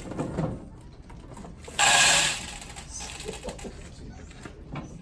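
A bag being torn open: one loud ripping noise about two seconds in, with smaller rustles and clatters of the packaging around it.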